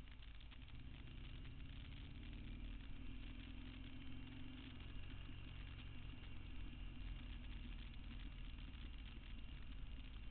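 A vehicle engine running steadily on the move, with a low rumble and road noise. A faint engine tone rises slightly a few seconds in.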